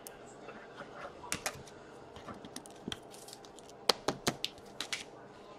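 Hockey trading cards being handled and flipped through by hand: a run of light, irregular clicks and taps, thickest and loudest about four seconds in.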